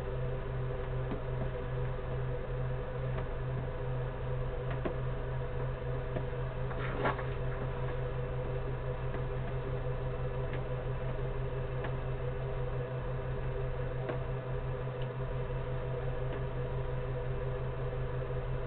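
A steady mechanical hum: a low pulsing drone with several steady tones above it, and a brief click about seven seconds in.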